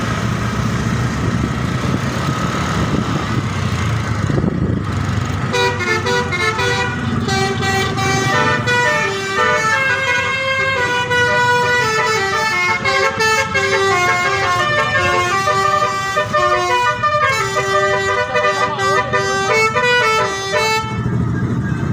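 Bus telolet horn, a set of switched air-horn trumpets, playing a tune of short stepped notes. It comes in about five seconds in over a low rumble and plays for about fifteen seconds before stopping.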